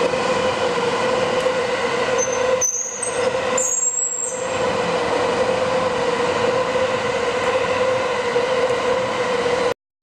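Train running across the elevated railway viaduct overhead, a steady droning tone over rumble, with brief high squeals about three to four seconds in. The sound cuts off suddenly near the end.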